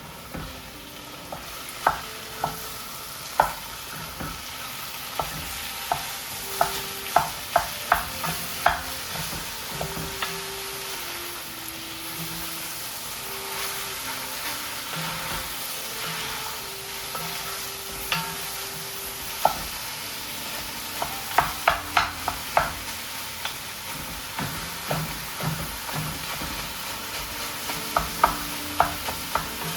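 Ground beef and pork sizzling as they fry in a pan over medium heat, while a utensil breaks the meat up, knocking and scraping against the pan in quick clusters of taps.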